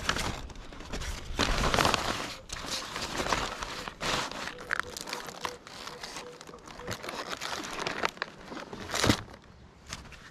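Black nylon drawstring bag rustling and crinkling in irregular bursts as it is handled and opened, with one sharper rustle near the end.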